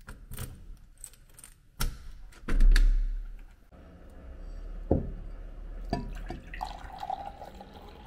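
A key turning in a front-door lock with small metallic clicks, a sharp clack, then a heavy low thump, the loudest sound. Then a glass knocks down on a tabletop and water is poured from a plastic pitcher into the glass near the end.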